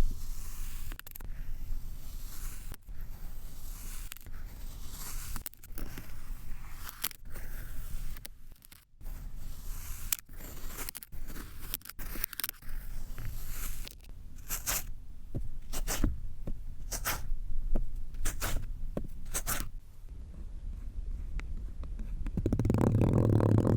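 Kinetic sand being cut and scraped, a crisp scraping with many short sharp crunches that come thick and fast in the second half. Near the end a louder, steady pitched sound comes in.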